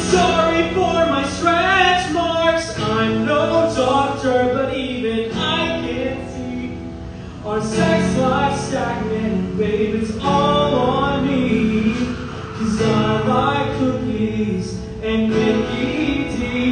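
Live music: a man singing and playing guitar.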